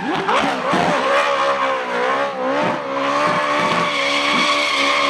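Toyota 86 drift car's engine held at high revs, its pitch wavering up and down as the throttle is worked, with the rear tyres squealing as the car slides sideways through a drift and spins them into smoke.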